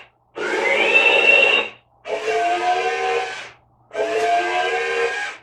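Cady Will remote-control robot toy playing electronic sound effects from its small speaker: three sounds about a second and a half each, the first with a rising whistle-like glide, the other two with steady tones over a hiss. It is the robot's idle routine, set off when the remote has not been used for a while, to get someone to play with it.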